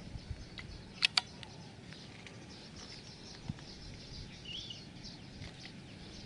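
Two sharp clicks in quick succession about a second in, over a faint background of birds and insects chirping, with a short bird call a little past the middle.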